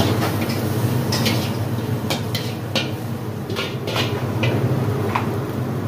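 A metal ladle scraping and clanking against a wok about nine times as fried rice is scooped out, over the steady roar of a gas wok burner.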